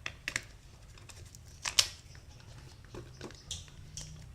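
Plastic shrink wrap being cut and pulled off a phone box. It makes a series of sharp snips and crackles, the loudest just before two seconds in.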